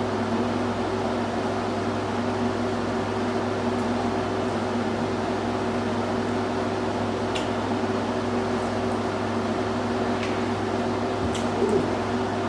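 Steady machine hum, a low drone with a couple of held tones, running at an even level, with a few faint clicks in the second half.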